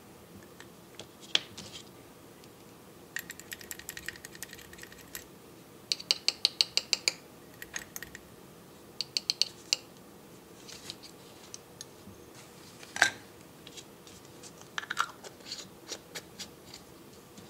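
Small glass paint jar being opened, stirred and closed: its ridged plastic screw cap clicks in quick runs as it is twisted. A thin metal stirring rod ticks and scrapes against the inside of the glass, with one sharp loud click partway through.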